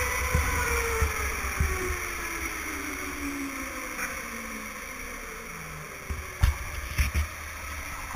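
Electric go-kart's motor whine falling steadily in pitch as the kart slows, over a low rumble from the chassis on the track that fades with it. A few sharp knocks come near the end.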